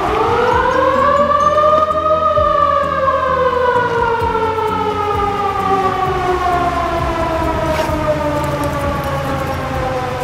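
Motor-driven outdoor siren sounding one long wail: it winds up in pitch over about two seconds, then slowly winds down.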